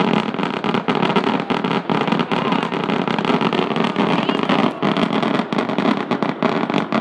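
Fireworks crackling: a dense, rapid, continuous rattle of many small sharp pops.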